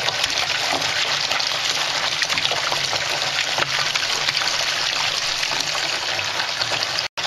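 Tap water running in a steady stream into a plastic paint roller tray, splashing over the tray, roller and paint scraper as they are rinsed of paint. The sound cuts out for an instant near the end.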